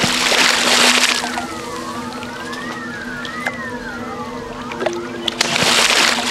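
Crocodile thrashing in shallow water with its prey in its jaws: a heavy splash at the start and another about five and a half seconds in, over background music with slow rising and falling tones.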